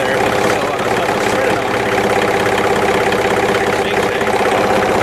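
John Deere compact tractor's diesel engine running steadily.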